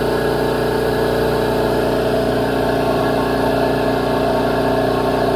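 Reciprocating compressor running steadily on a test run, an even mechanical hum with a fast regular pulse.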